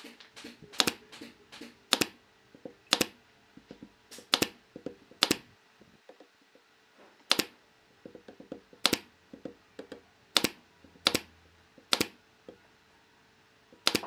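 Pneumatic nail gun firing brads into pine blocks: a dozen or so sharp shots at irregular intervals, roughly one a second, with lighter clicks and taps between them.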